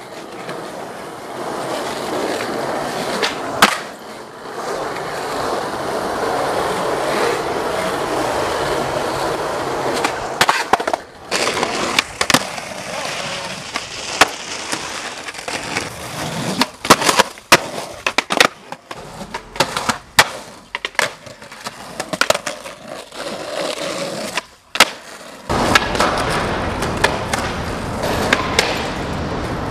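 Skateboard wheels rolling on pavement, broken by many sharp clacks and bangs of the board popping, landing and striking walls and curbs, thickest in the middle stretch.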